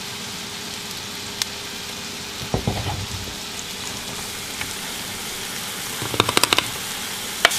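Chopped onion and green pepper sizzling in melted butter in a stainless steel skillet, a steady frying hiss. A few light knocks and clicks come through it, about a third of the way in and again near the end.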